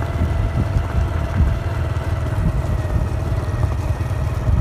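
Motorcycle engine running steadily while riding, a steady whine over a heavy low rumble.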